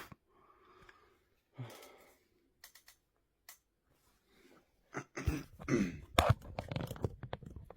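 Breathy sighing and a few light clicks, then about five seconds in a louder run of close handling noise: rustling, rubbing and knocks against the microphone.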